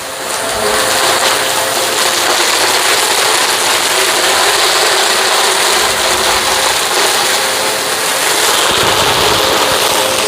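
Hoover Sprint QuickVac upright vacuum running at full suction, picking up dirt and kitty litter.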